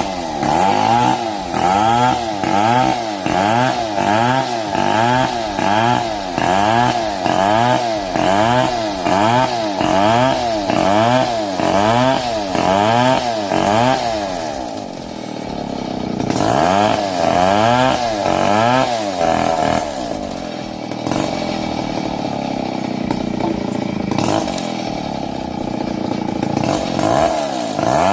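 Petrol chainsaw cutting lengthwise along a log under load. Its engine pitch rises and falls in a quick, even rhythm, about three swings every two seconds. Past the middle it briefly dips and eases, then it runs steadier near the end.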